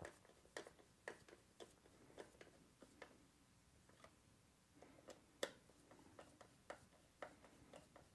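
Faint clicking from a Torx screwdriver tightening the cover screws of a pump's control box, about two clicks a second. The clicking pauses for a couple of seconds midway, and the sharpest click comes a little past halfway.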